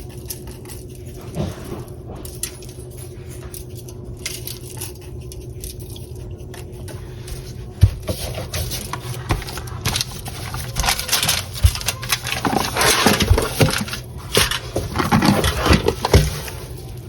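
A spice container being handled and shaken over ribs: a few clicks about halfway through, then bursts of rattling shakes, over a steady low hum.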